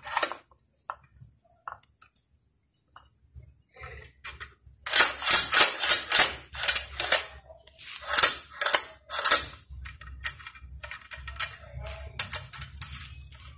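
Metal and plastic parts of a circular saw clicking and rattling as its edge guide is fitted to the base plate and adjusted by hand. A dense run of clatter comes from about five to nine seconds in, then lighter scattered clicks.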